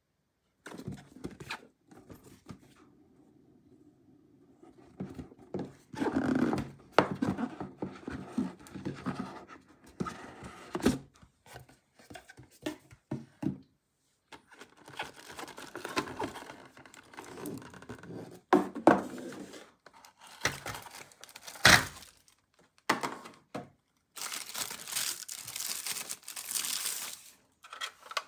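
Unboxing handling noise: a cardboard box and a plastic tray being handled, with scattered knocks and taps and the crinkling and tearing of plastic and tissue wrapping. A long stretch of crinkling near the end is the loudest part.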